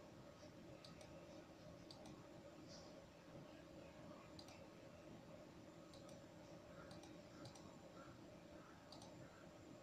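Near silence: faint room tone with a low steady hum, broken by faint, irregular short clicks every second or two.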